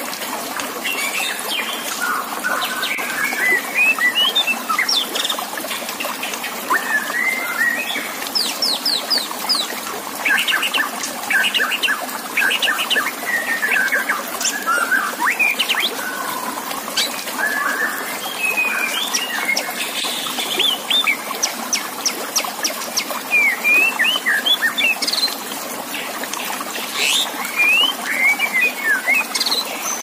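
White-rumped shama singing a continuous run of phrases, fast trills and sliding whistled notes, over a steady trickle of running water.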